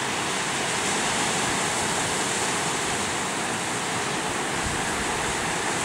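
Steady wash of ocean surf, an even rushing noise with no breaks.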